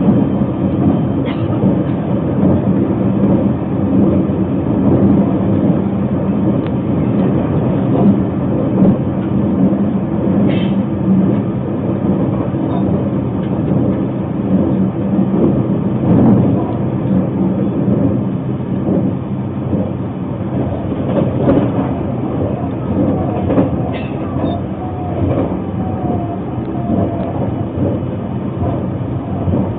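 Narita Express train running at speed, heard from inside the carriage: a steady rumble of wheels on the rails with a low motor hum, a few faint clicks, and a faint whine near the end.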